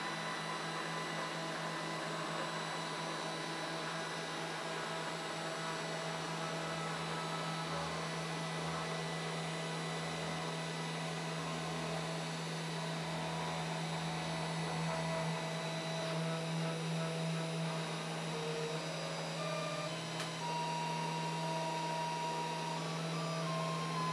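Small CNC engraver running its first carving pass in wood: a steady spindle hum, with fainter higher motor whines that shift pitch now and then as the axes move.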